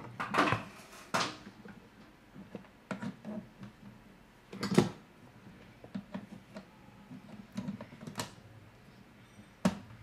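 Cables and plugs being handled: scattered rustles and small plastic clicks, with a sharper knock a little under five seconds in and another click near the end.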